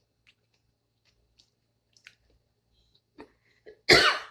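Close-miked eating sounds: scattered soft wet mouth clicks, then one loud, brief wet mouth sound near the end.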